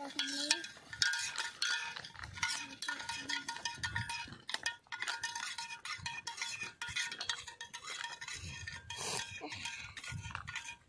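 Metal spoon stirring lemon water in a small stainless steel pot: rapid, repeated clinks and scrapes against the steel sides, with the pot ringing after them.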